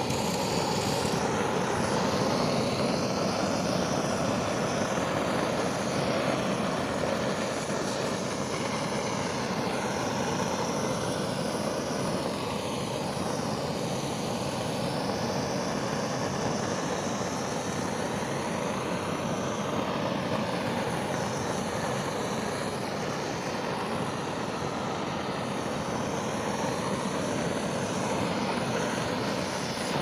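Hand-held LPG gas torch (spray burner gun) burning steadily, a continuous rush of burning gas that starts abruptly and holds an even level.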